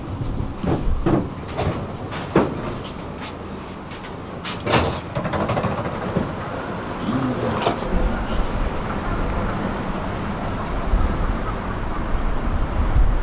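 Tram interior at a stop: a series of knocks and clunks as the doors work, then a low rumble from about two-thirds of the way in as the tram pulls away.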